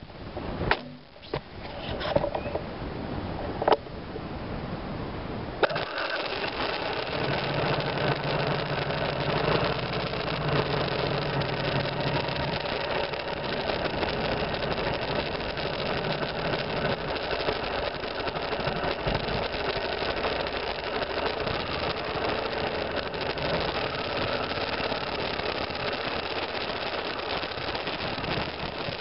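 A few knocks and clicks, then, about six seconds in, the BMW F 650 GS Dakar's single-cylinder engine starts and runs steadily as the motorcycle moves off along the trail.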